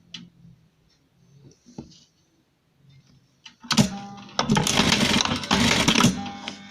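Simaru SM-9800M sewing machine starting up and stitching fast for about two seconds, after a few soft handling clicks. The dense rattle of the needle then dies back to the motor's faint steady hum.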